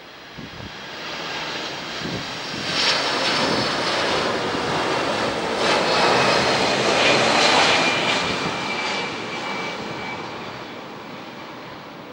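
Boeing 767-300ER airliner's twin jet engines on final approach, passing low overhead. The jet noise builds for several seconds and peaks past the middle, with a high engine whine that drops in pitch as the aircraft goes by, then fades.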